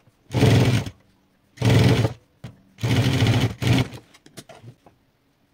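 Industrial sewing machine stitching upholstery fabric in three short runs, each lasting under a second, with short pauses between them. A few faint clicks follow near the end.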